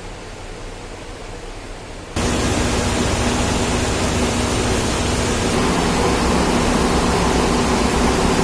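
Steady hum of a ferry's machinery and ventilation heard inside the passenger cabin, a noisy drone with low steady tones. It jumps abruptly much louder about two seconds in.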